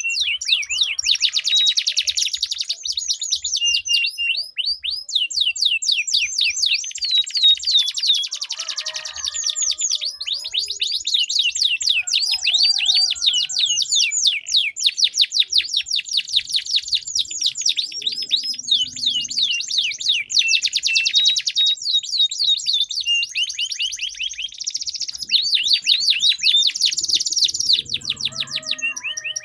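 Domestic canaries singing nonstop in long, rapid rolling trills, fast runs of repeated sweeping notes with hardly a break.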